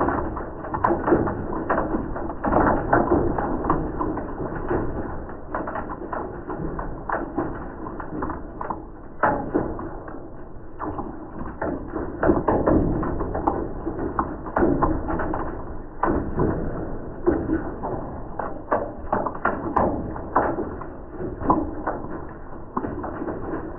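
Hailstones pelting a window pane and patio in a dense, irregular patter of hits, the audio slowed with the slow-motion picture so the impacts sound low and drawn out.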